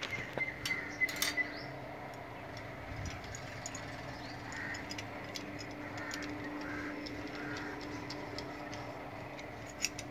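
Small metallic clicks and clinks from handling brass MICC cable gland parts and a spanner: a cluster in the first second and a half, then one single click near the end, over a steady background hum.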